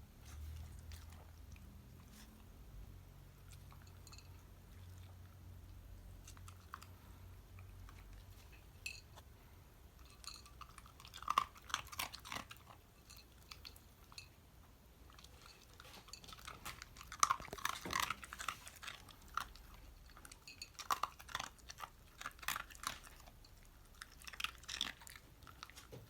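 Shiba Inu chewing and crunching its food, in bursts of crackly bites with quiet pauses between them.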